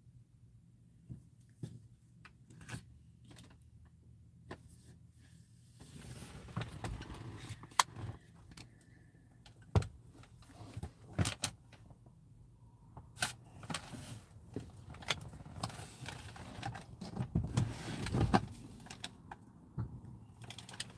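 Handling noise from a phone resting on a car dashboard: scattered clicks and knocks with rustling as it shifts, over a low steady hum. The rustling thickens about six seconds in, and the sharpest knocks come about 8 and 10 seconds in.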